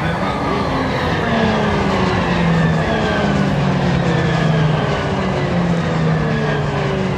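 A formation of Pilatus PC-21 turboprop trainers flying past with a steady propeller drone. Their engine tones fall slowly in pitch one after another as the aircraft go by.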